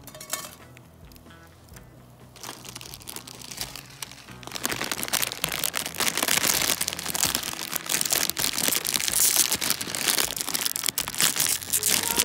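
Over light background music, a plastic instant-noodle bag crinkles loudly from about four seconds in. It is being gripped and pulled with a work glove and resists tearing open.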